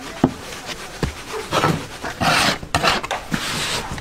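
Utensils knocking and scraping during food preparation: a few sharp knocks, with rasping scrapes about one and a half and two and a half seconds in.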